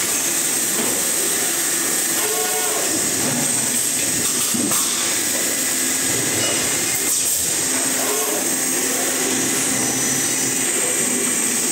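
Machinery of an automated in-mold-labeling container line running: a steady high hiss with occasional sharp clicks of the label-handling and gripper mechanisms, and a few brief pitched tones.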